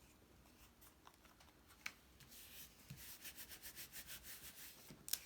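Paper being rubbed with quick back-and-forth strokes, about five a second, faint. A light click comes before the strokes, and another just after they stop.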